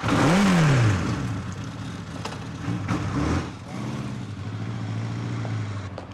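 Motorcycle engine revving hard as it pulls away, its pitch rising then falling in the first second, with a second swell about three seconds in; after that a steady, lower engine drone.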